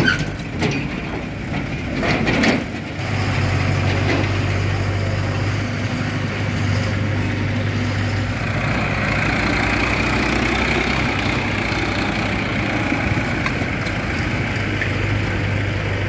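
Diesel engines of farm tractors and a tipper truck running with a steady low hum, with a short dip about two to three seconds in. A higher hiss joins the engine from about eight seconds in.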